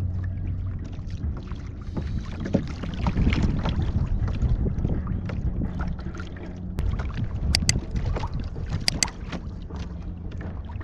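Water lapping and sloshing against a kayak hull, with wind buffeting the microphone and a few sharp clicks about two-thirds of the way through.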